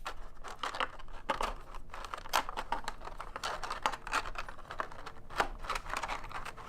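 Packaging being handled as a USB-C docking station is taken out of its box: a run of irregular rustles and small clicks.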